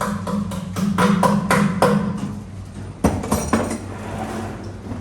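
Hammer tapping a 10-gram clip-on wheel weight onto the outer rim of a wheel on a tire balancer: a quick run of ringing metal taps, then a second shorter run about three seconds in, over a steady low hum.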